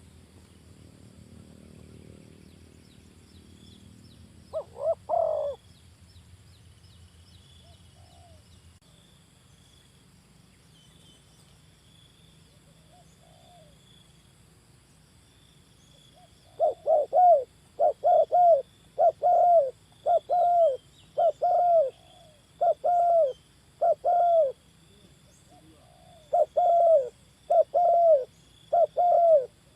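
Spotted dove cooing. A brief pair of coos comes about five seconds in. Past the halfway mark a long, steady run of short coos follows, nearly two a second, each note arching down in pitch, with a brief pause near the end.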